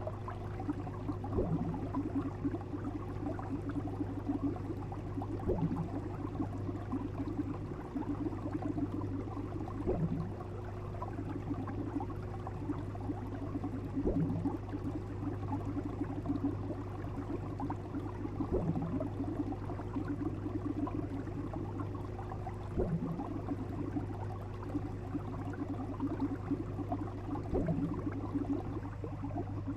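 Fish sound effect: steady bubbling water over a low hum, with a soft pulse repeating about every four seconds.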